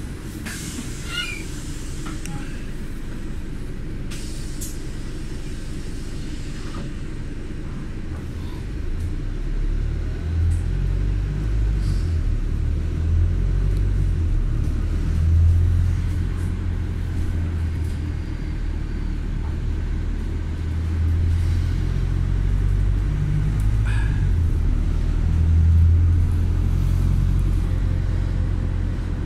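Low, steady rumble of a moving road vehicle, growing louder and heavier about nine seconds in.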